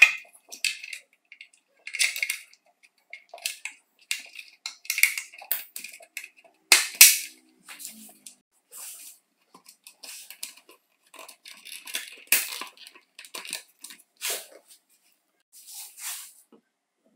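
Irregular clicks, taps and scrapes of hard plastic as the orange housing of an Electrolux Ergorapido cordless stick vacuum is handled and pulled apart around its motor and circuit board on a wooden workbench, the loudest a sharp knock about seven seconds in.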